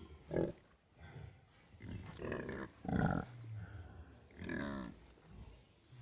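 Sleeping pigs grunting and snoring in their sleep: a string of separate low grunts, the loudest about three seconds in.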